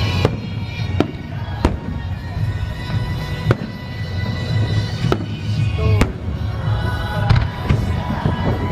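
Aerial fireworks shells bursting: about eight sharp bangs at uneven intervals, over music played for the show.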